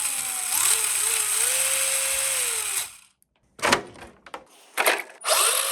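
Electric motor of a 1:10 RC car (Team Associated Datsun 240Z, set up as rear-wheel drive) whining up and down in pitch as it is throttled, over a hiss of its tyres on concrete. The sound stops about three seconds in, comes back in short bursts, then runs again near the end.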